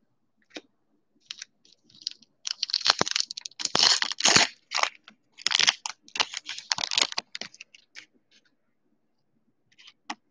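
Plastic wrapper of a baseball trading-card pack being torn open and crinkled by hand, a burst of crackling and tearing from about two and a half to seven and a half seconds in, with a few faint clicks of cards being handled before and after.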